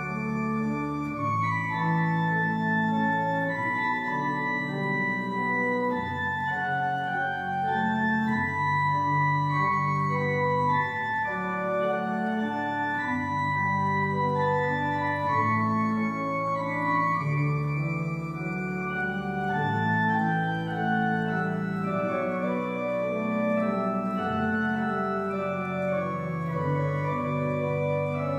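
Organ played from a three-manual drawknob console: a continuous piece of held, overlapping chords and moving lines. Deep pedal bass notes come in and drop out several times.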